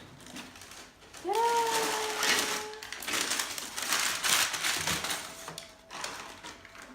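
Packaging rustling and crinkling for several seconds while a new handbag is unpacked from its box. The rustling dies down near the end.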